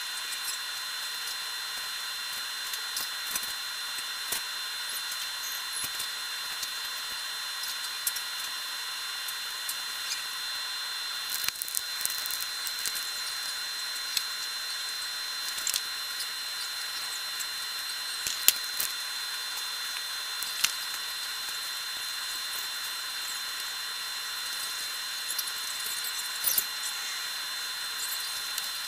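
Steady hiss with a constant high whine, broken by scattered sharp clicks and crackles.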